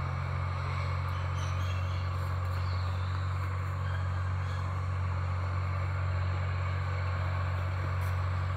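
Air conditioner running in a small room: a steady low hum with an even hiss over it, unchanging throughout.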